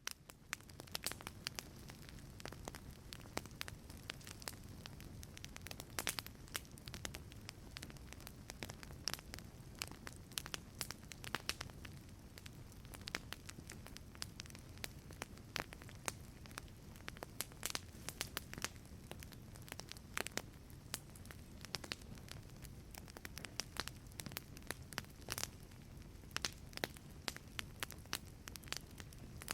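Wood fire crackling in a fireplace: a steady low rumble with frequent irregular sharp pops and snaps, fading in at the start.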